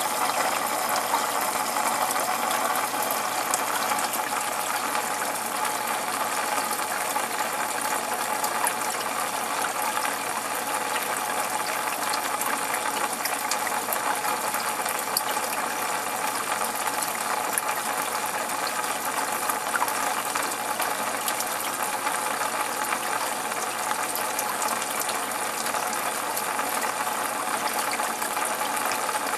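Steady running noise of an aquarium's water pump and moving water, with a faint steady hum and a dense fine crackle throughout.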